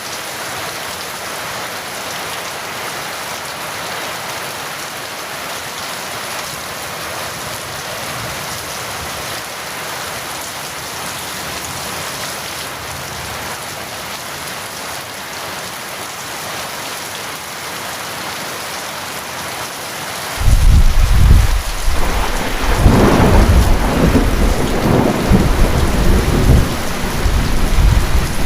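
Steady rain falling, then about two-thirds of the way through a sudden loud clap of thunder that keeps rumbling and rolling to the end over the rain.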